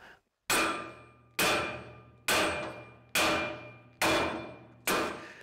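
Sledgehammer striking the steel rear-wheel spindle of a brush hog rotary cutter six times, about once a second, each blow leaving a ringing metallic tail. The blows drive the seized spindle up through its tube.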